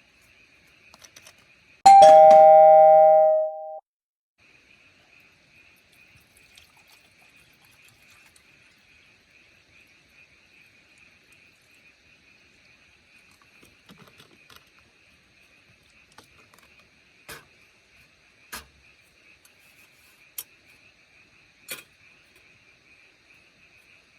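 A bright two-tone chime like a doorbell ding-dong, about two seconds in, ringing for about two seconds and then cut off suddenly. After it comes a faint steady high-pitched hum with a few soft clicks.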